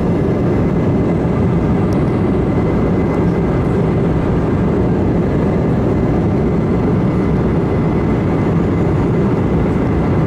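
Steady cabin noise of a jet airliner in cruise, heard from inside the cabin: an even rush of air and engine noise, deep and unchanging, with a faint high whine held on a single note.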